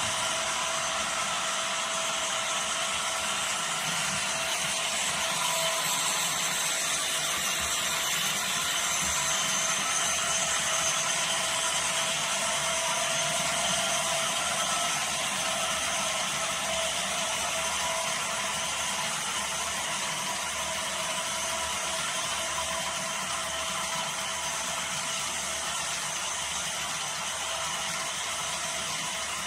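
HO scale model freight train of gondolas running on the layout track: a steady mechanical clatter of small wheels on rail that eases slightly as the last cars pass.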